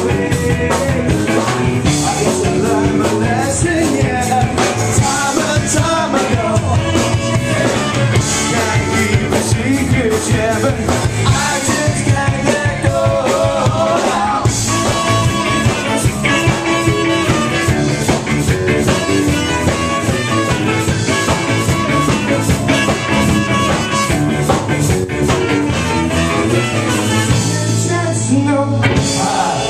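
Live rock band playing a song: electric guitars, bass and drum kit, with saxophone and a singer at times.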